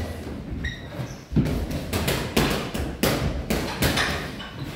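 Boxing sparring in a ring: irregular thuds and slaps of gloved punches and footwork, roughly one or two a second, with a couple of brief shoe squeaks.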